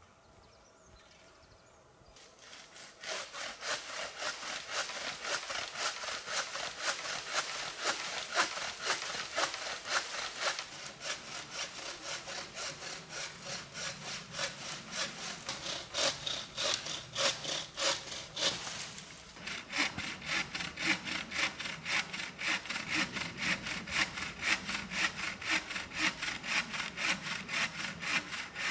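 Hand saw cutting through wood with steady, rapid back-and-forth strokes. The sawing starts a couple of seconds in and breaks off briefly about two-thirds of the way through.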